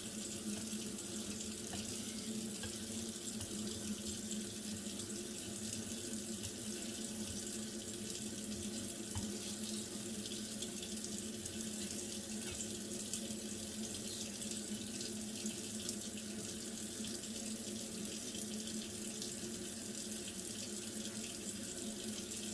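Water running steadily from a tap, an even rushing with no breaks.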